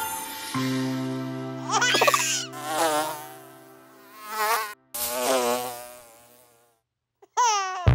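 Cartoon insect buzzing sound effect: a steady buzz with wobbling, warbling tones laid over it. It stops about a second before the end, and a short sliding cartoon sound follows near the end.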